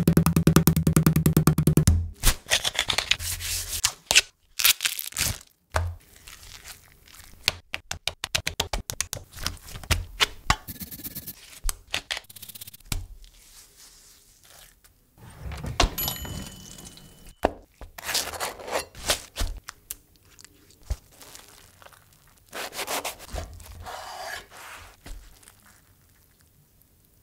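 A run of close-miked food-prep sounds: a meat mallet pounding a chicken breast through plastic wrap in rapid strikes at the start, then sharp knocks, scraping and rubbing on a wooden cutting board.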